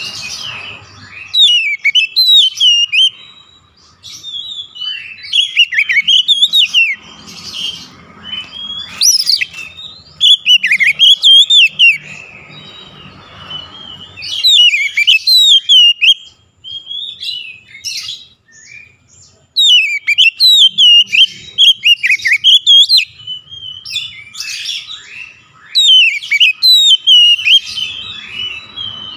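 Oriental magpie-robin (kacer) singing loudly in repeated phrases of varied whistles and rapid twittering notes. Each phrase lasts a second or two, with short pauses between.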